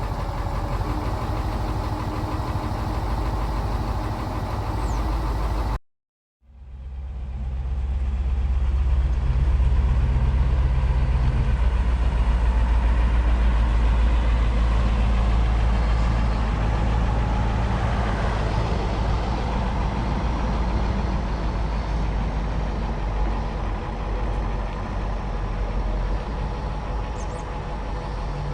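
1980 Ford F700 truck's diesel engine running at a steady idle after a cold start. About six seconds in the sound cuts out for half a second, then returns louder and deeper.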